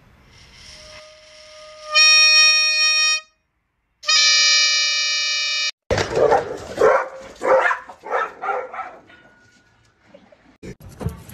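Plastic toy fan horn held against a golden retriever's nose, sounding two steady buzzing honks of about one and a half seconds each as the dog breathes through it; the first builds up from a faint tone. After the second honk, a run of loud, rough irregular sounds for about three seconds.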